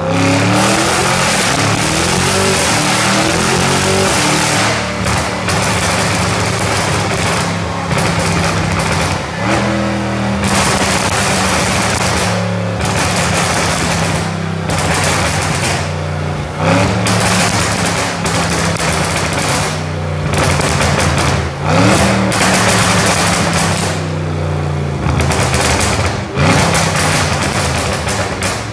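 Tuned Audi RS6 twin-turbo V8 with decatted stage 2 Milltek exhaust, running hard on a dyno. The revs climb and drop several times over, through gear changes, with the exhaust crackling and banging.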